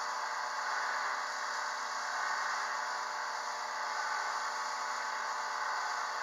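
Harbor Freight wood lathe running at a steady speed, a steady whir with a thin whine, while a cloth is held against the spinning cherry-wood spindle to apply finish.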